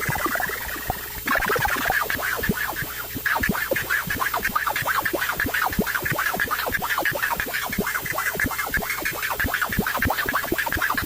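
Hand-made Arduino noise synthesizer putting out a dense, jittery stream of rapid clicks and pulses, with a high tone that sinks slightly and cuts off abruptly about a second in.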